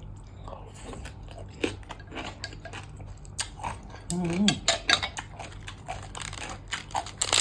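Eating utensils clicking and clinking against a plate of papaya salad, with chewing and crunching between, and a brief hum of a voice about four seconds in.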